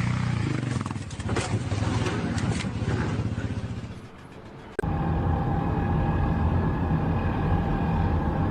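A motor vehicle or machine engine running. About five seconds in it cuts abruptly to a different steady engine drone with a steady whine.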